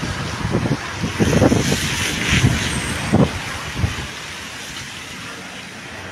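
Outdoor wind rumbling on the microphone, with road traffic noise that swells about two seconds in and dies down after about four seconds.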